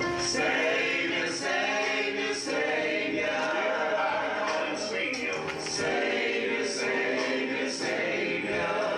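A church congregation and choir singing a slow hymn together, many voices holding long notes.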